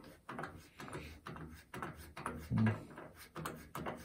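Small irregular clicks and knocks, a few a second, from a hand turning the air-pressure regulator knob on a parts washer's metal control panel, with one louder knock about two and a half seconds in.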